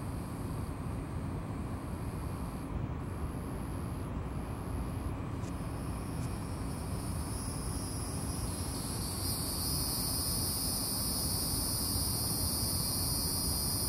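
Steady high-pitched insect drone, louder from about eight seconds in, over a low background rumble.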